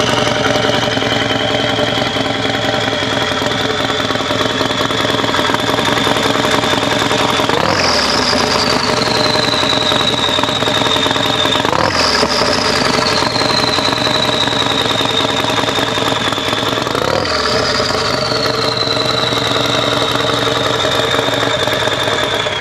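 Turbocharged Harley-Davidson V-twin idling with the Garrett turbocharger's high whine climbing slowly as it spins up, then three quick throttle blips a few seconds apart; each blip sends the whine sharply up in pitch and it winds slowly back down. Revved with no load, the turbo only spins and builds no boost.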